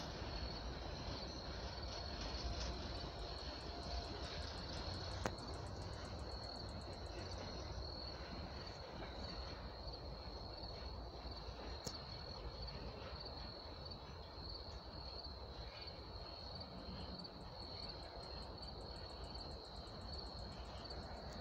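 Crickets chirping in a steady high trill, over a faint low rumble from the receding train.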